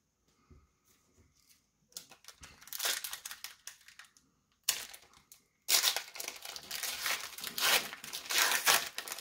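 A trading-card pack wrapper being torn open and crinkled by hand: a short stretch of crackling about two seconds in, then a sharp rip and louder, continuous crinkling through the second half.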